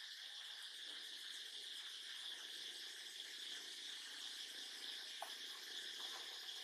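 Steady high-pitched insect chorus, with a faint tick or two about five seconds in.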